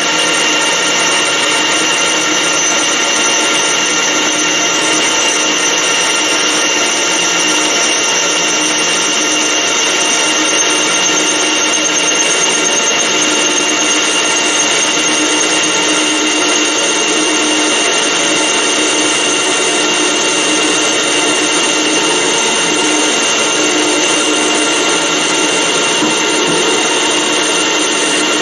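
Metal lathe running while its tool takes a cut along a metal bar under a copy attachment: a steady machine sound with a high, even whine.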